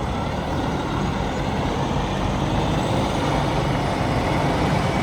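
Heavy vehicle engine running steadily, a constant low rumble over city street noise.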